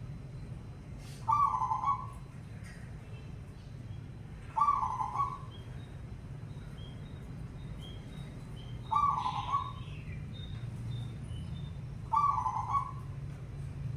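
Zebra dove (perkutut) cooing: four short rolling coo phrases, one every three to four seconds. Faint chirps of other small birds come in between, over a low steady hum.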